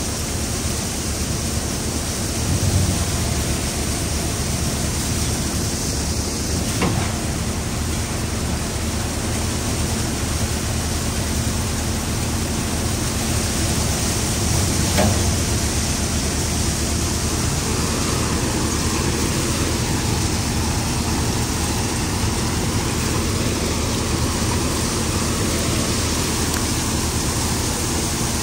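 Tractor-powered, belt-driven threshing machine running steadily while chickpea plants are fed into it, a continuous even noise of the threshing drum over a low steady hum. Two brief knocks stand out, about seven and fifteen seconds in.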